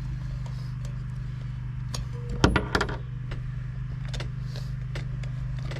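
Small metallic clicks and clinks of tools being handled, with a louder clatter about two and a half seconds in, over a steady low hum.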